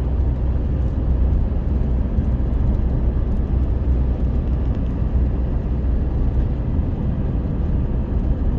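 Steady low rumbling noise, loud and unchanging.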